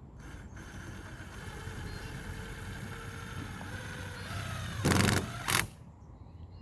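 Cordless drill driving screws: a motor whine that falls slightly in pitch over about four seconds, ending in two loud short bursts.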